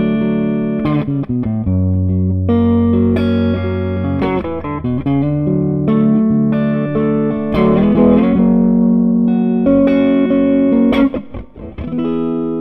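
Electric guitar played through an SCW Audio Blackstone Overdrive, a Bluesbreaker-style clone pedal, with held, strummed chords changing every second or two and a brief run of quick choppy strokes near the end before a final ringing chord. The pedal is on its lower, fatter switch with gain at about noon, so the drive is light and a little muffled.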